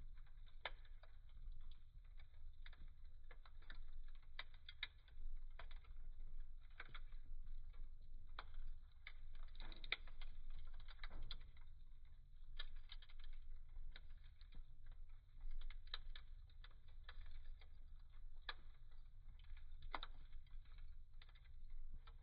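Burning firewood crackling in a fireplace: irregular sharp pops and snaps scattered over a low steady fire hum.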